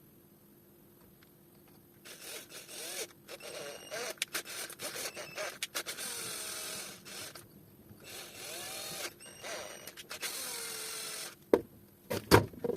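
Small power tool running in short bursts, its motor pitch rising and falling as it speeds up and slows down, with a couple of sharp knocks near the end.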